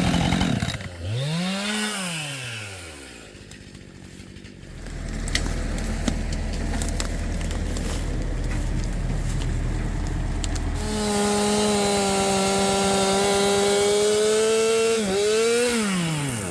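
Two-stroke chainsaw revving and letting off, idling low for several seconds, then held at full throttle for about four seconds as it cuts through the log, and let back down near the end.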